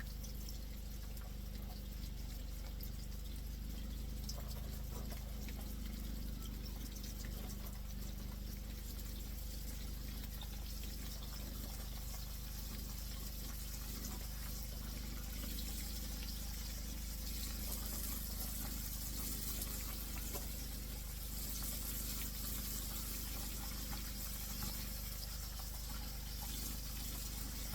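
Hot grease sizzling and crackling as pieces of deer backstrap fry in it, a steady hiss that grows a little brighter in the second half, over a steady low hum.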